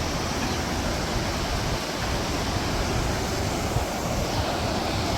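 Steady rushing outdoor noise with a fluctuating low rumble, even throughout.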